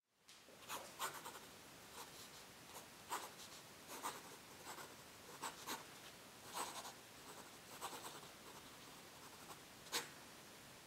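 A pen scratching across paper as a line of handwriting is written, in short irregular strokes with a sharper stroke near the end.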